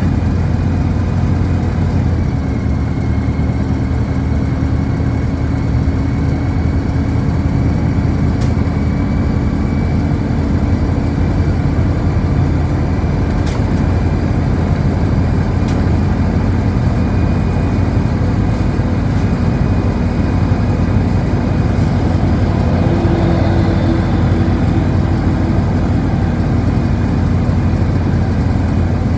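Interior running noise of a city bus on the move: a steady low engine drone and road rumble, with a thin steady whine above it.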